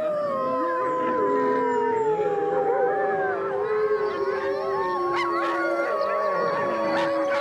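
Several wolves howling together in a chorus: long, overlapping howls at different pitches, some held steady and some sliding slowly down.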